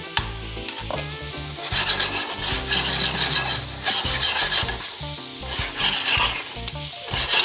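Sliced carrots, sweet peppers, onions and tomatoes sizzling in a hot sauté pan as they are stirred and tossed with tongs, in repeated scraping strokes over the steady frying hiss.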